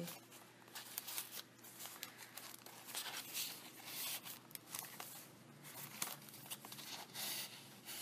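Paper rustling and crinkling as the pages and tucked paper tags of a handmade junk journal are lifted and turned by hand, in faint, irregular bursts.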